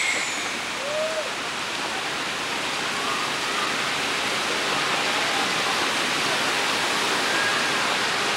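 Steady rushing of water in a log flume ride's channel, an even hiss with no break.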